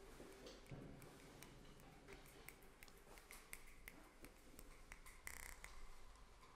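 Near silence with faint, scattered clicks and ticks and a short burst of hiss about five seconds in: sparse sounds from a live electronic performance.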